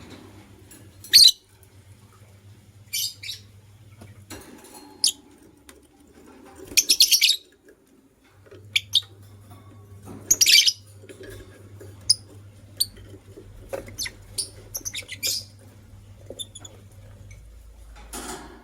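Lovebirds chirping: short, sharp, high chirps every second or two, with quick rattling runs of chirps about seven and ten seconds in.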